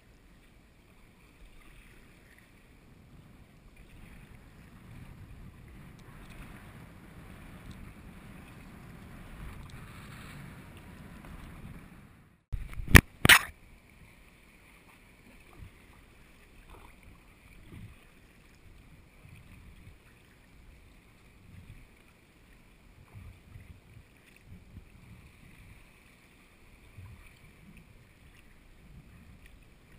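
Water rushing and lapping against a sea kayak's hull under paddle strokes, picked up close by a camera on the deck. About twelve seconds in, the sound drops out briefly, and then come the two loudest sounds, two sharp knocks half a second apart. After them, soft irregular water sloshing.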